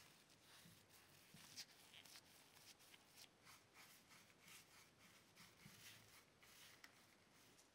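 Near silence with faint, irregular scratching strokes, roughly two a second.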